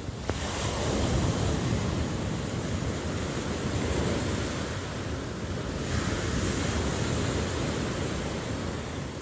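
Ocean waves breaking and washing on a shore, a steady rush of surf that swells about a second in and ebbs toward the end.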